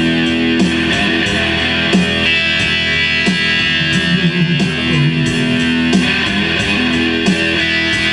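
Electric guitar playing an instrumental passage of a blues song, with sustained notes and a figure that comes round again about every second and a quarter.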